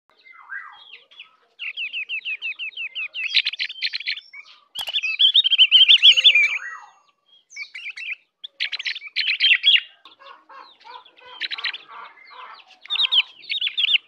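Ovior (opior, a white-eye) singing: phrases of rapid, high trills and chattering notes with short pauses between them. The loudest is a dense chatter about five seconds in.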